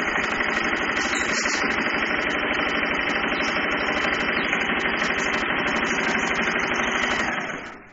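Singer 2250 electric sewing machine running steadily at speed, sewing a row of stitches through fabric: a motor hum with a fast, even needle rattle that stops near the end.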